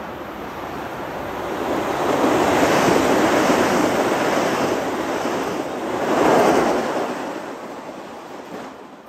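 Metro-North M8 electric multiple unit passing close by, a loud rush of noise that builds over the first two seconds, swells again about six and a half seconds in, then fades as the cars go by.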